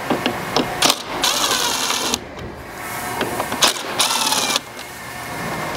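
Cordless drill with a Phillips bit running in two short bursts of about a second each, its motor whine wavering, as it backs screws out of a plastic bumper fascia. A few light clicks come just before the first burst.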